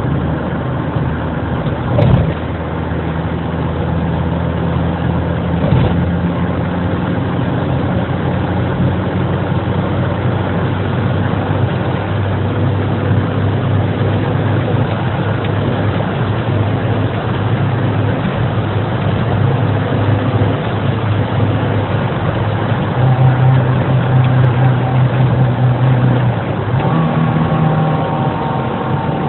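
Fiat Punto 2's 1.2i 60 hp Fire four-cylinder petrol engine running, with the faulty behaviour of an internal short circuit in its crankshaft position (TDC) sensor cable. The engine note is steady, then shifts up and gets louder about 23 s in and again near the end. A sharp knock comes about two seconds in.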